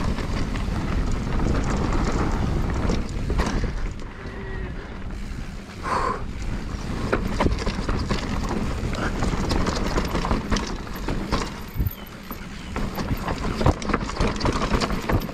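Mountain bike clattering over a rough dirt trail: a dense run of irregular knocks and rattles from the bike and tyres on stones and roots, with wind rumbling on the microphone.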